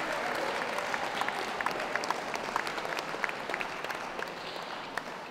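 Audience applauding, a dense patter of many separate claps that eases off slightly toward the end.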